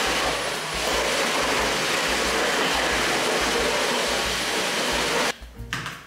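Cordless stick vacuum cleaner running steadily, then cutting off suddenly about five seconds in.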